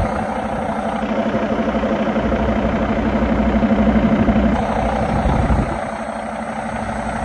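2018 Cummins X15 15-litre inline-six diesel running at a steady idle on an engine stand, with an even, rapid pulse. It grows louder from about a second in and drops back before the end, as the open turbocharger inlet comes close.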